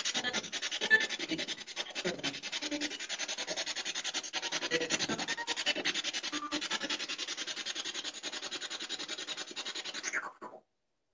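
Spirit-box (ghost box) radio sweeping through stations: rapid stuttering static, chopped many times a second, which cuts off suddenly near the end.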